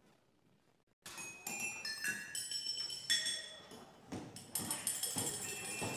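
Orchestral music starts suddenly about a second in, with bright ringing notes and clinking, jingling percussion from kitchen utensils and dishes played as instruments.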